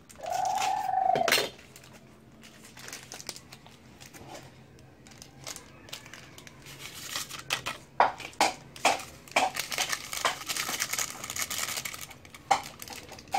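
Plastic seasoning sachets being crinkled and torn open over a pot of tomato sauce, with a run of sharp clicks and crackles from about seven seconds in. A single pitched call about a second long comes at the start.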